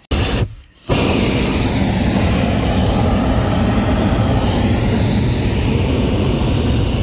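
Hot-air balloon's propane burner firing: a short blast, a half-second pause, then a long steady burn that stops abruptly.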